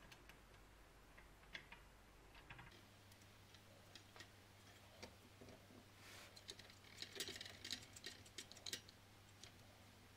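Faint, scattered clicks and taps of small ceramic terminal pieces and the hotplate's plastic housing being handled, coming thickest about six to nine seconds in.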